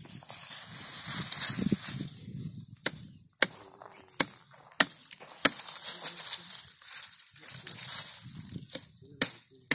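Hand pruning shears snipping shoots and branches at the base of a young custard apple tree: a rustle of dry leaves and twigs, then five sharp snips in quick succession about three seconds in, and another snip near the end.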